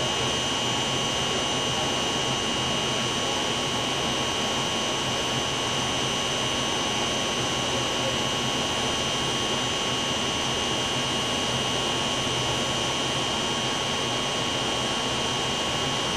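Steady machine noise: an even rushing hum with a high, unchanging whine over it.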